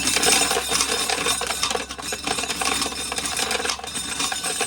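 Dry corn kernels rattling and clicking as an ear of corn is shelled, a dense, irregular patter of kernels dropping into a bucket.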